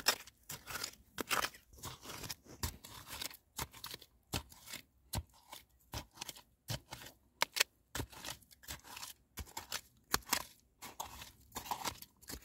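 A gloved hand digging and scooping wet mud and grit out of a small spring-fed hole, in a quick, irregular series of short scrapes and crunches.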